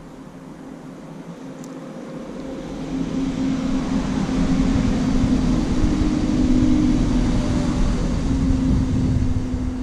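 An engine hum that grows louder from about three seconds in and stays strong, as of a motor passing close by, its pitch dropping slightly near the end.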